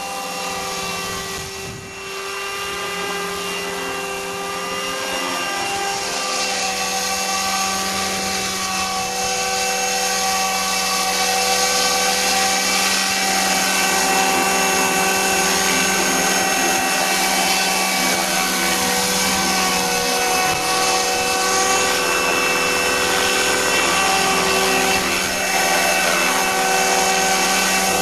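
Electric radio-controlled helicopter, Thunder Tiger Mini Titan E325 mechanics under a scale Dauphin fuselage, running: a steady whine of motor and gears with rotor noise. It grows louder over the first ten seconds or so as the model comes close and down to the grass, then holds steady with the rotor still turning.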